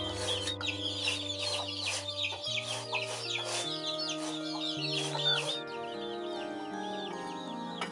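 Cleaver chopping pickled sour cabbage on a wooden chopping block, about two chops a second, then stopping. Chicken calls and a melody of held notes run underneath.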